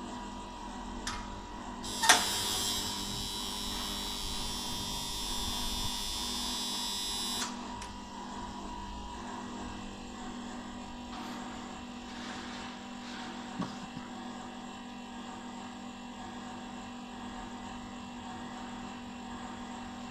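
Planoprint 50 exposure unit humming steadily. About two seconds in, a loud thud as its lid is shut, then a hiss for about five seconds that stops suddenly. A small knock comes later.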